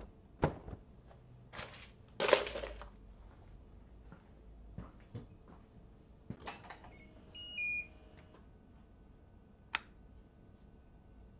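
Scattered light clicks and knocks of hands working on the motorcycle's bodywork, with a louder scraping rustle about two seconds in. A brief high electronic tone stepping down in pitch comes about seven and a half seconds in, and a single sharp click near the end as the seat's heat rocker switch is pressed.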